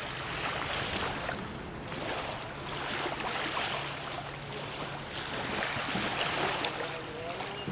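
Kayak paddle strokes splashing through lake water, coming in repeated swells every second or two.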